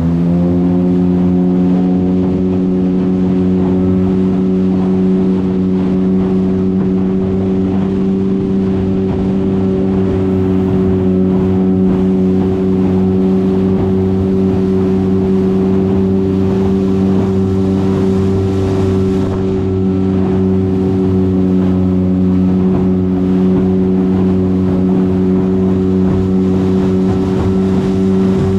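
Small aluminium motorboat's engine rising in pitch right at the start, then running steadily at high revs, with water rushing and spray hissing along the hull.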